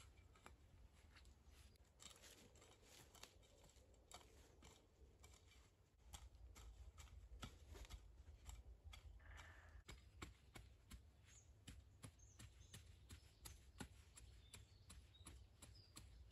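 Faint, irregular scrapes and crunches of a small folding shovel cutting into soil and dry leaf litter. A low rumble joins about six seconds in.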